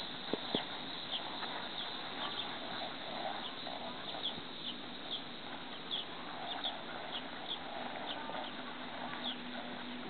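Small birds chirping: short, high, downward chirps, roughly two a second, over a steady outdoor hiss. Two sharp knocks come about half a second in.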